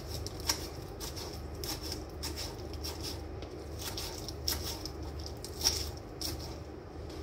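Kitchen knife slicing lettuce on a cutting board: irregular crisp cuts and taps, roughly one every half second to second, over a steady low hum.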